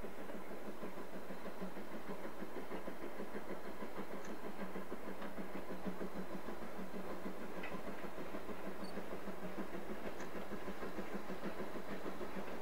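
BR Standard Class 2MT steam locomotive working a freight train, a steady exhaust beat with the train running along the track.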